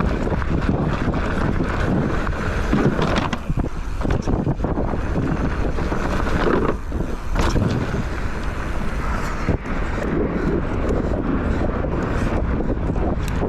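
Wind buffeting the microphone of a mountain-bike camera, a dense low rushing noise, with scattered knocks and rattles from the bike riding over rough ground.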